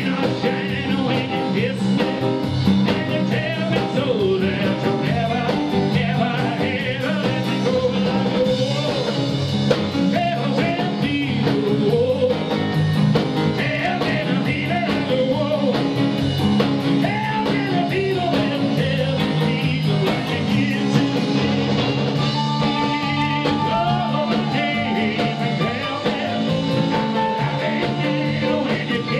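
Live rockabilly band playing: a man singing over hollow-body electric guitar, piano, upright double bass and drums, with a steady driving beat.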